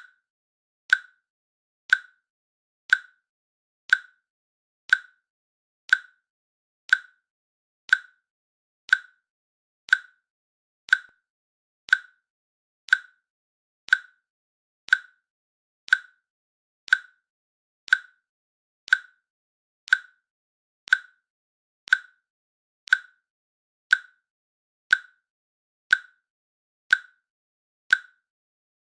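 Countdown timer's click sound ticking once a second, short sharp clicks with silence between them.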